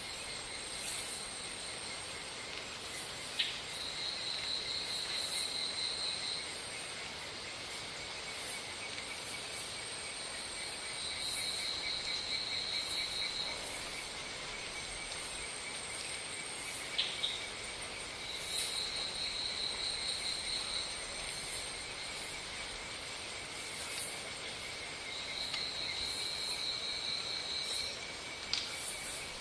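Insects chirring in a steady chorus, with one trill coming in about every seven seconds and lasting two to three seconds each time. A few sharp clicks fall among them, once about three seconds in and twice close together about halfway.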